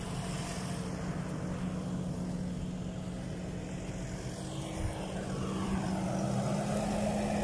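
Fendt tractor's diesel engine running steadily with a low hum. The hum grows somewhat louder over the last couple of seconds.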